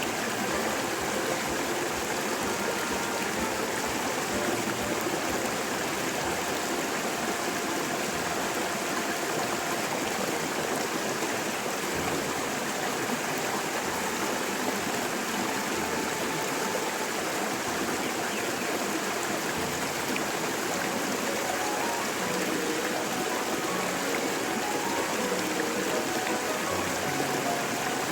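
Steady rushing, water-like noise with no breaks, with faint short tones above it.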